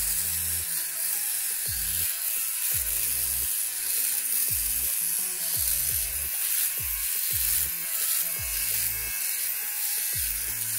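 Philips OneBlade Pro shaver buzzing as it is run over dry stubble on the cheek and jaw, with a steady high hiss. Background music with a repeatedly falling bass line plays under it.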